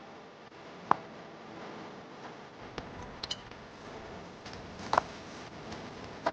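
Kitchen handling noises: a few light, sharp clicks and taps, the two loudest about a second in and about five seconds in.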